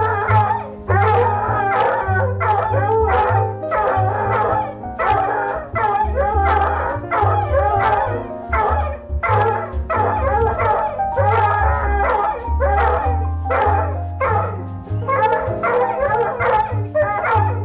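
Two coonhound puppies howling together, with music and a steady bass beat playing under them.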